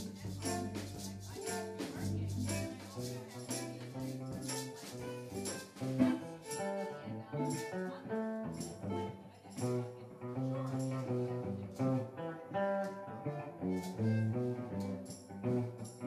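Live band playing an instrumental reggae groove: electric guitars and bass over a drum kit, with maracas shaken on the beat.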